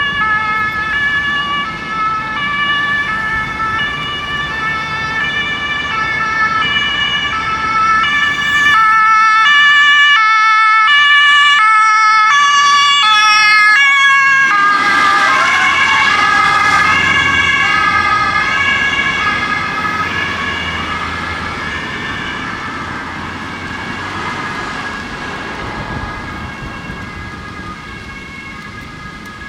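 German police car's two-tone siren alternating between a high and a low note. It grows louder, drops in pitch about halfway through as the car passes, then fades away, over engine and road noise.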